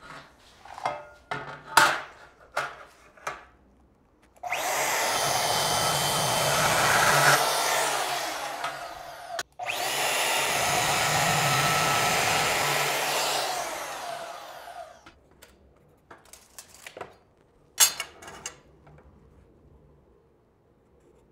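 Portable DeWalt bandsaw cutting aluminum bar stock, heard as two long cuts of about five seconds each, split by a brief stop. Clattering of the metal being handled comes before the cuts, and a few knocks follow them.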